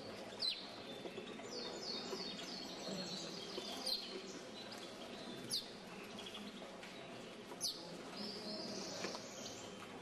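Caged finches calling: several sharp, high notes that slide quickly downward, a second or two apart, with two runs of quicker high chirping, one around two seconds in and one near the end. Under them runs a steady murmur of hall noise.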